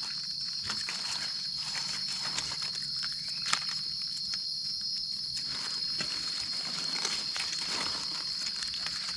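Insects droning in one steady high-pitched note, with scattered rustles and clicks of dry forest litter underfoot and one sharper crack about three and a half seconds in.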